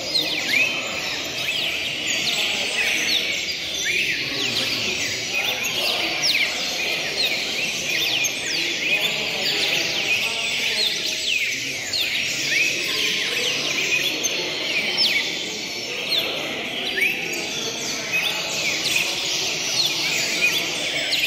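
Many caged cardinals singing and chirping at once in a dense, unbroken chorus of short, quick, downward-sweeping high notes, one bird overlapping the next.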